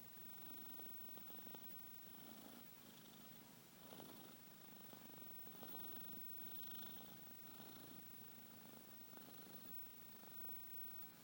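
A domestic cat snoring faintly in its sleep, a soft rasp that swells and fades with each slow breath.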